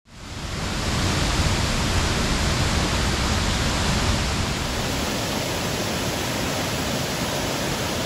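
Steady rushing water that fades in at the start and runs on evenly without a break.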